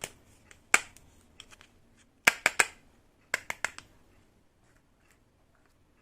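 Sharp clicks and taps from small toy kitchen pieces being handled. There is one a little under a second in, a quick run of three at about two and a half seconds, and four more just after.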